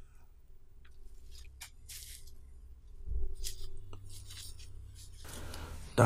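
Gloved hands handling corroded metal relics on a tabletop mat: a few light clicks, a soft thump about three seconds in, and a rubbing rustle near the end.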